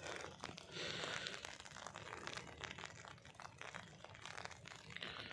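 Faint, irregular clicking, scraping and rustling as a plastic 12 V battery charger case is handled and opened.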